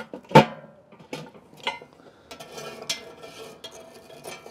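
Cast-iron Dutch oven lid and metal charcoal tongs knocking against the pot and coals: one loud metallic clank about half a second in, then several lighter clinks and scrapes.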